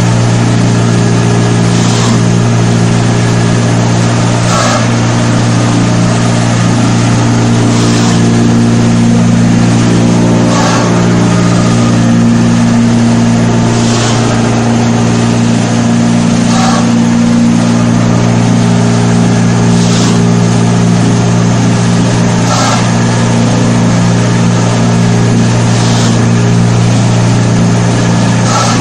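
Paper-pulp egg tray moulding machine running: a loud, steady motor hum with a short hiss repeating about every two to three seconds as it cycles.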